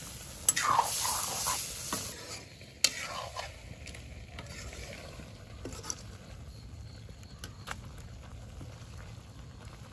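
Metal ladle stirring and scraping pork offal frying in a steel kadai, with sizzling and sharp clicks of metal on metal. The sizzling drops off after about two seconds, leaving a quieter stretch with occasional clicks.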